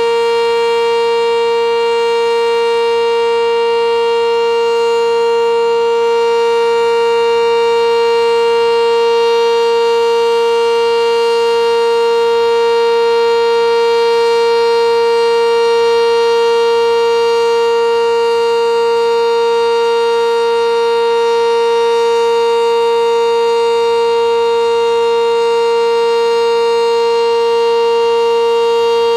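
Sentry 10V2T outdoor warning siren sounding one steady, unchanging tone at full speed, really loud. Only one of its two motors is working.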